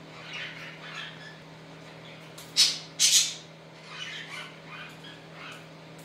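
Budgerigars chattering, with two loud, shrill squawks about two and a half and three seconds in.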